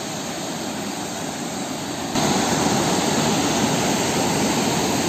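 Mountain stream rushing white over boulders in a steady roar of water, louder from about two seconds in.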